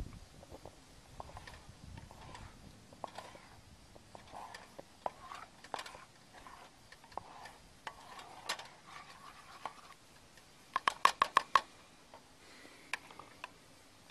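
A metal spatula scraping and stirring scrambled eggs in a thick stainless-steel pot, with scattered soft scrapes and clicks. About eleven seconds in comes a quick run of about six sharp metal taps, the loudest sounds.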